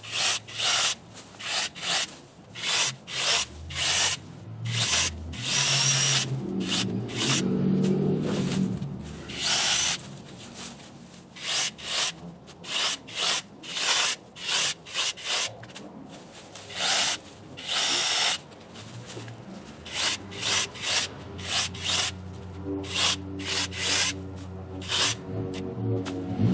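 Electric mini chainsaw cutting through small branches in a quick series of short cuts, about two a second, with a couple of longer cuts. The motor hums steadily near the end.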